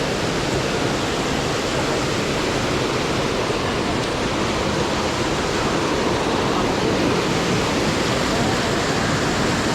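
Steady, loud rush of a small waterfall's falling water.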